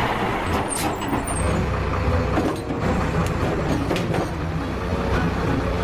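Steady hiss of water spraying, with a low steady hum underneath.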